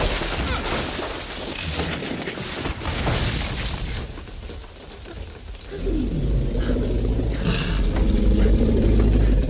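Film sound effects: a wooden hut being smashed apart in heavy rain, with a dense crashing and splintering for about four seconds. The crash eases, and from about six seconds a deep low rumble sets in with low tones that fall in pitch.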